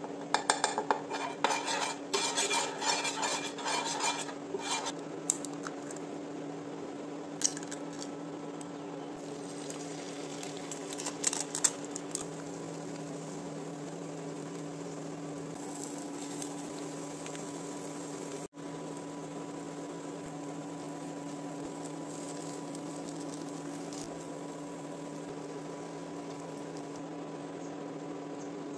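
Metal cooking utensils clattering and scraping against a pan, dense at first and then only a few scattered clinks, over a steady droning hum.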